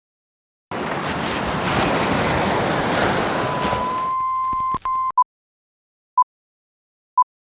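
Electronic static hiss, with a steady electronic tone rising slightly out of it and cutting off about five seconds in, followed by short beeps at the same pitch once a second.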